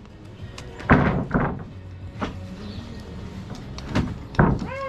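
Several hard, irregularly spaced knocks on the wooden roof framing, the loudest about a second in. Just before the end comes a short squeal that rises and then falls.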